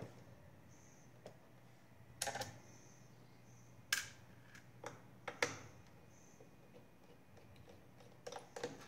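Scattered clicks and taps of a screwdriver and small screws against a laptop's plastic case as the back-cover screws are being removed: single clicks spaced about a second apart, then a quick run of several near the end.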